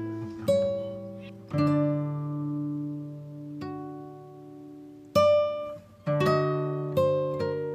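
Background music: a slow plucked-string melody, each chord struck and left to ring out and fade, with a few quicker notes near the end.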